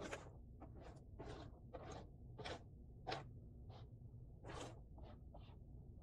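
Cardboard jigsaw puzzle pieces being handled and slid across a tabletop: a faint run of about ten short scrapes and rustles, roughly one every half second.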